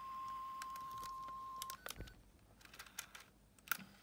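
A steady test tone of about 1 kHz played back from tape by a Sony Walkman FX483, the reference tone used to check and set its tape speed. It cuts off just under two seconds in, and clicks and crackles follow as the plug in the headphone jack is handled, with the loudest sharp click near the end.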